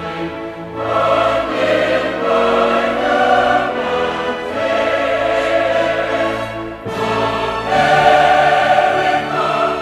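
Choral music: a choir singing slow, long-held notes that change in phrases.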